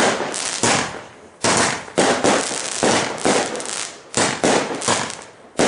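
Weco Fire-Fighter 86-shot fireworks battery firing its finale: shots bursting in quick succession, about two a second, each bang trailing off into the crackle of crackling stars.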